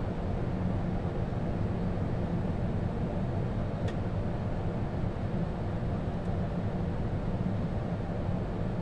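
Steady flight-deck noise of an Airbus A220 airliner on final approach, with landing gear down and flaps extended: airflow and engine sound heard inside the cockpit. A faint click comes about four seconds in.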